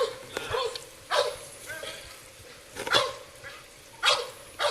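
A dog barking repeatedly, about five barks at uneven spacing.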